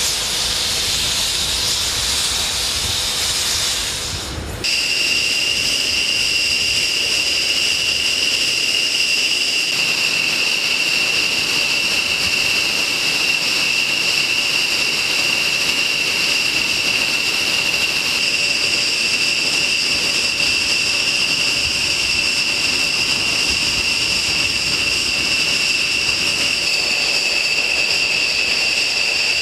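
B-1B Lancer's jet engines running: a loud rushing hiss that changes abruptly about four seconds in to a steady high whine over the rush, which holds for the rest of the time.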